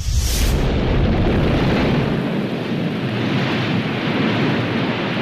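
A volcanic vent erupting with a steady, dense rushing rumble that starts suddenly with a brief hiss. The deepest part of the rumble falls away about two seconds in.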